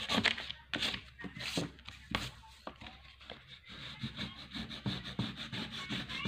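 A hand rubbing dry colour into paper with repeated quick strokes, smudging and blending it, the paper scuffing against the desk mat beneath.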